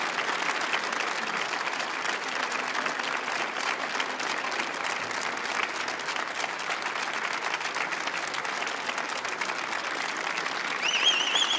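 Audience applauding steadily, with a high wavering whistle near the end.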